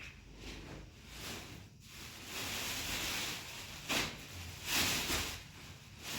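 Rustling, handling noise in several uneven surges of hiss-like sound, one longer stretch and shorter sharper ones, the sharpest about four seconds in.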